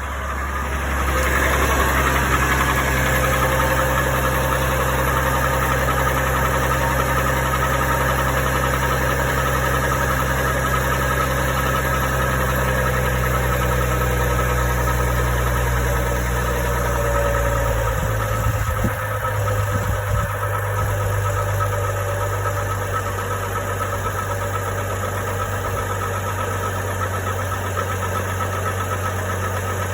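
GMC Envoy's 4.2 L inline-six idling steadily with a knock from underneath the engine. About eighteen seconds in the idle wavers briefly and settles slightly lower and quieter.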